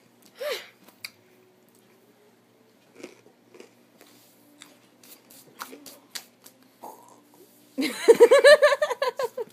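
A boy chewing crunchy Flaming Hot Cheetos: a short vocal sound, then faint scattered crunches and mouth clicks. About eight seconds in comes a burst of loud laughter in quick pulses.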